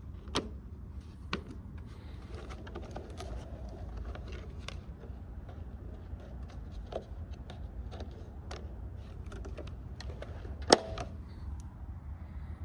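Light clicks and rattles of a lawn mower's air filter and its housing being handled, with a couple of knocks about a second apart near the start and a single sharp knock near the end, over a steady low rumble.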